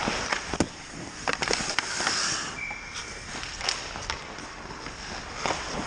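Ice hockey play: skate blades scraping and carving across the ice, with several sharp clacks of sticks and puck.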